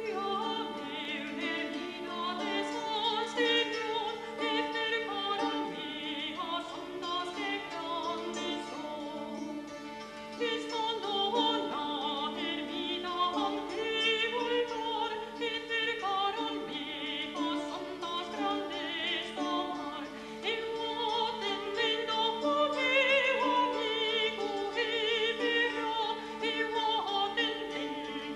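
Background music: a voice singing with wide vibrato over a steady, held low drone note.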